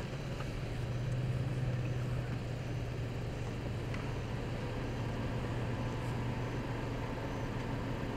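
Steady low hum of a motor vehicle engine running, over a faint outdoor noise.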